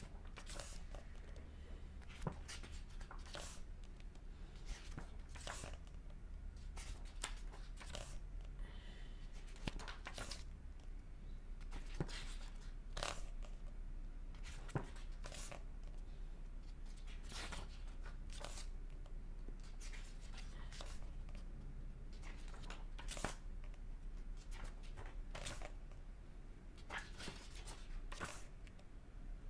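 Pages of a paperback book being turned by hand one after another, each turn a short papery swish, over a low steady hum.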